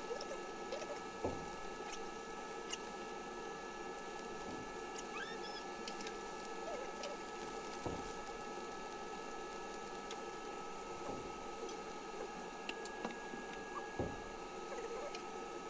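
Sped-up kitchen cooking noise: a steady hum with scattered short clicks and knocks and a few brief squeaky chirps.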